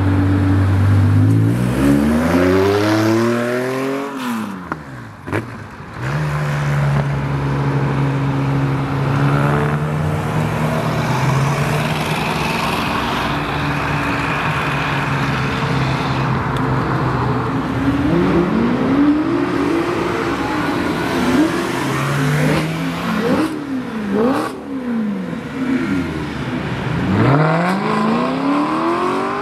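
Several cars accelerating away one after another: a classic air-cooled Porsche 911 flat-six idles, then revs up in rising sweeps through the gears; a car drives off at steady engine revs; then engines are blipped in quick rises and falls, and a Maserati GranTurismo V8 revs up as it pulls away near the end.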